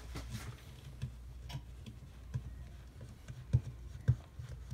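Light, irregular clicks and knocks of cast-iron waffle-iron parts being handled and set down on a towel, with two louder knocks near the end.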